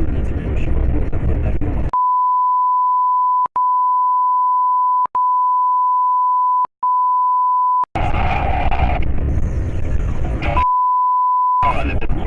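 A steady 1 kHz censor bleep that blanks out the soundtrack, running for about six seconds in four stretches with brief breaks between them, and again for about a second near the end. In between there is steady road and engine noise from the moving vehicle.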